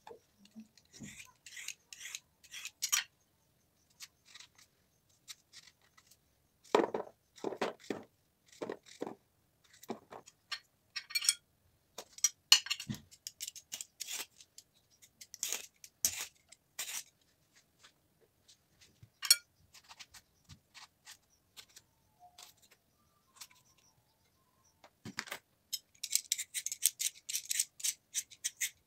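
Kitchen knife cutting courgette and aubergine by hand, a scatter of short cuts and clicks with pauses between them. Near the end a hand-held vegetable peeler starts scraping the skin off a potato in a quick run of rasping strokes.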